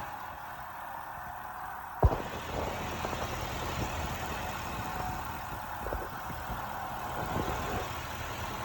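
Mitsubishi Lancer Celeste's engine, fed by a mechanical fuel pump with a freshly replaced diaphragm, coming in suddenly with a sharp click about two seconds in and then idling steadily.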